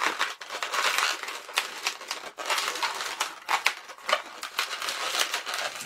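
Latex 260 modelling balloons rubbing and scraping under the fingers, with many short crackly scrapes, as the tail of one balloon is wrapped around a pinch twist.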